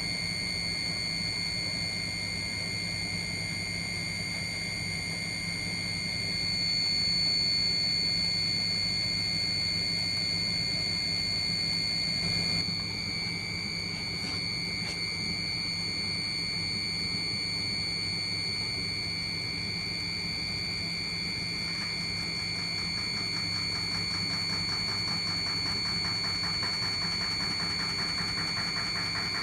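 Steady motor hum with an even high whine above it, swelling slightly about six seconds in and easing back after about twelve seconds.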